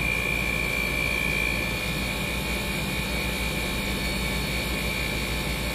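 Window-type air conditioner running in cooling mode, its compressor and fan giving a steady drone with a constant high whine. The compressor is running while it is being charged with refrigerant a little at a time.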